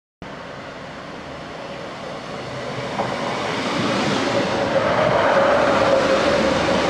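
Class 156 diesel multiple unit arriving at a station platform and passing close by, its running noise growing louder as it nears. A steady whine builds from about four seconds in.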